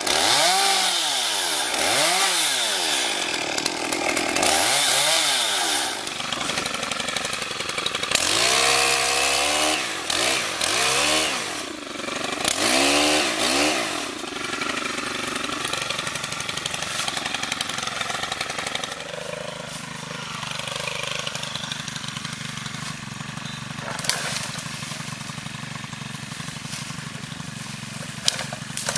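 Chainsaw revving up and falling back about six times during the first half, as it cuts through tree branches. It then runs at a lower, steadier speed for the rest of the time.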